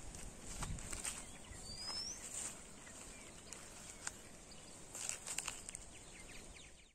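Faint outdoor ambience in scrub woodland: a steady high-pitched hiss, a single short rising bird chirp about two seconds in, and scattered faint clicks and rustles.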